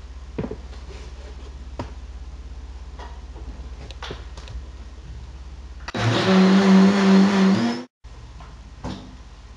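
Countertop blender running at full speed for about two seconds, blending walnut milk, then stopping abruptly. Before it, a few light clicks and knocks as the lid is fitted onto the jar.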